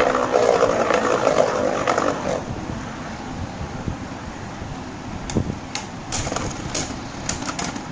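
Two Beyblade Burst spinning tops, one of them Xeno Xcalibur, whirring and scraping against each other and the plastic stadium floor for about the first two seconds. From about five seconds in they clack together sharply several times as they collide.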